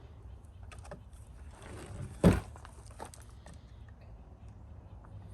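Small parts being handled during disassembly of a marine toilet: scattered light clicks and a brief scrape, then one sharp loud knock about two seconds in, over a steady low hum.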